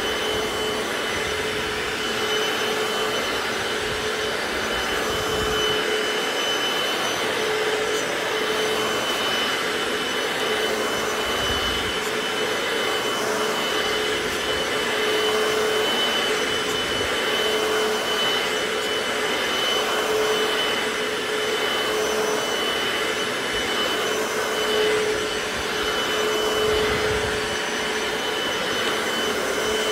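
Hoover FloorMate wet hard-floor cleaner running steadily, its suction motor giving a constant whine over the rush of air as it is pushed across a wet hardwood floor, drawing up the cleaning water.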